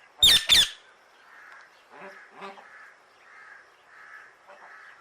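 Pet parrot giving two loud, harsh squawks in quick succession, followed by softer chattering calls.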